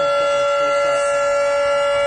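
Federal Signal 3T22 three-tone tornado siren sounding its steady alert: several tones held together at a constant pitch and an even, loud level.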